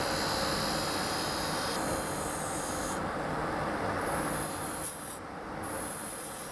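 Spindle gouge cutting a spinning wooden spindle on an HME Union Student wood lathe: a steady rushing hiss of the cut over the running lathe, shifting in tone as the tool moves and easing off a little about five seconds in.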